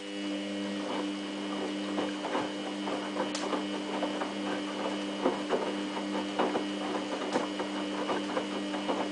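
Samsung WF8804RPA front-loading washing machine in its main wash, its drum turning slowly. A steady motor whine runs under a string of small irregular knocks and clicks from the tumbling load.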